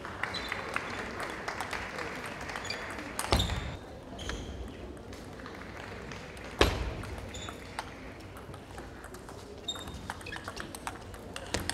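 Table tennis ball clicking and bouncing in a sports hall, with short high squeaks scattered through and two heavy thumps about three and six and a half seconds in.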